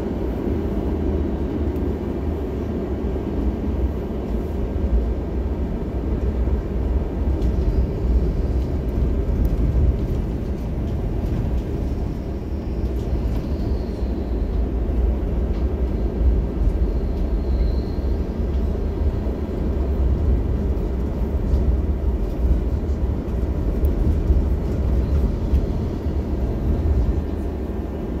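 Helsinki tram running, heard from on board: a steady low rumble of wheels on rails and running gear, with a faint high wheel squeal partway through as it rounds a curve.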